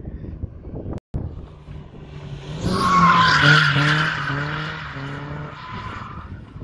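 Nissan 240SX drifting: tyres squealing loudly as the car slides sideways, over an engine held high in the revs. The squeal swells from about two and a half seconds in, peaks near the middle and fades out before the end.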